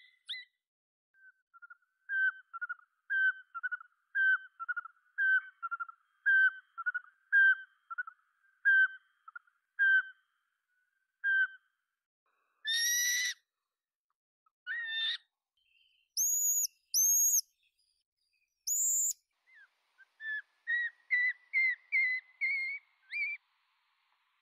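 Small owl calling: a series of short whistled toots, about two a second and slowing, then a longer harsh call, three short very high-pitched squeaks, and a quick run of whistled notes near the end.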